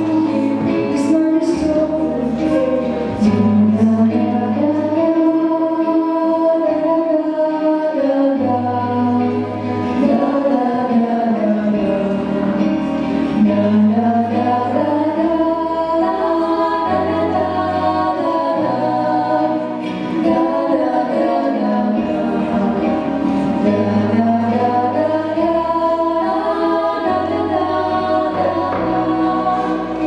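Female vocal quartet singing in harmony through microphones over a backing track, with a slow bass line changing note every second or two beneath the voices.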